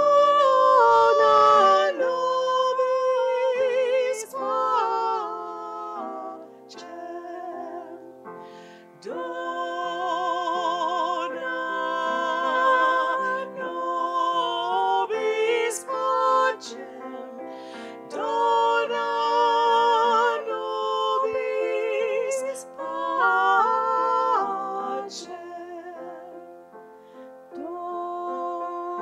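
Music of a Taizé chant: female singing with a wide vibrato over sustained accompaniment, in phrases that swell and fade.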